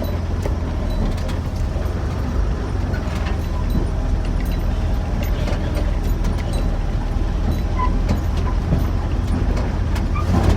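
Ford Ranger pickup driving, heard from inside the cab: a steady low engine and road rumble with scattered rattles and knocks from the body.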